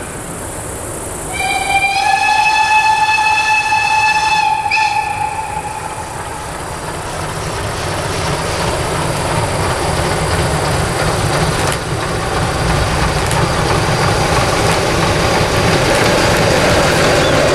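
Steam locomotive whistle sounding once, a long blast of about three and a half seconds starting shortly after the beginning, then the running noise of the approaching steam train slowly growing louder.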